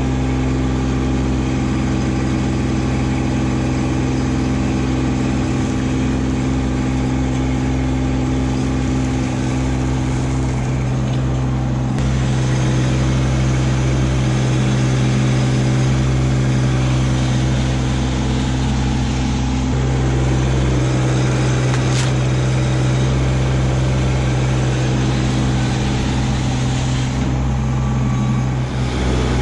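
Kubota LX2610 compact tractor's three-cylinder diesel engine running steadily while its front loader works gravel, a constant hum with no break.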